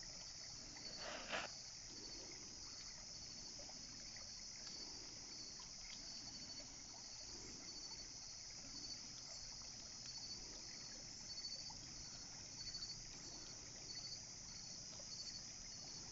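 Chorus of night insects: a steady high-pitched trill with a faint pulsing chirp running through it, and a brief rustle about a second in.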